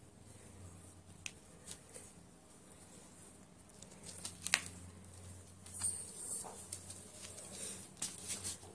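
Soft rustling of a tissue wipe and scattered small taps from hands handling a kitten, with a sharper tap about four and a half seconds in and brighter rustles around six seconds and near the end. A faint steady low hum sits underneath.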